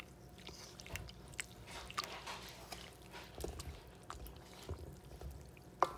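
Wooden spoon stirring thin baghrir batter of flour, semolina, yeast and water in a metal bowl: wet stirring sounds with irregular soft clicks.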